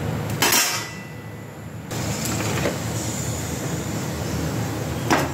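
Kachoris deep-frying in hot oil in a kadhai, with a steady sizzle that grows louder about two seconds in. A metal slotted spoon clatters against the pan about half a second in and again near the end.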